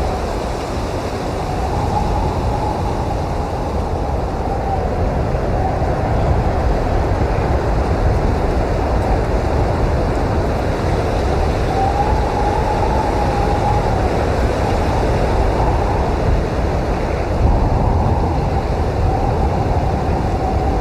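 Blizzard wind blowing steadily: a deep, constant rush with a thin whistle that swells and fades every few seconds.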